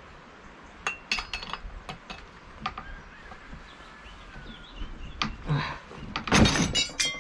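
Metal tool clicking and clinking on a Partner 405 chainsaw's cylinder head as the spark plug is unscrewed, with a louder metallic rattle and scrape near the end.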